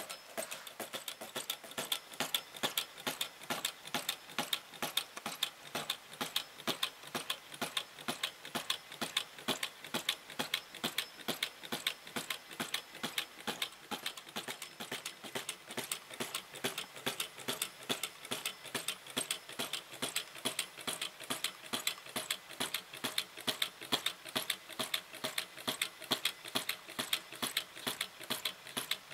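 Model flame-eater (vacuum) engine with twin flywheels running steadily, its mechanism clicking in an even rhythm of about four or five clicks a second.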